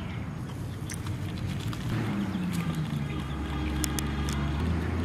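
A motor vehicle's engine drones low and grows louder from about two seconds in, as if one is drawing near. A few short clicks sound over it.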